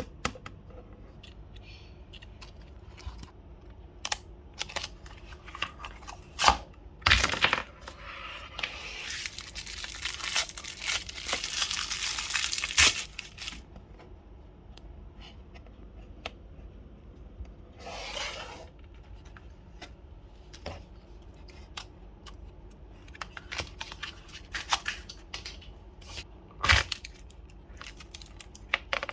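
Plastic toy packaging being torn open and crinkled by hand, with scattered clicks and taps from the packaging. There is a long stretch of tearing and crinkling about a third of the way in, and a shorter one later.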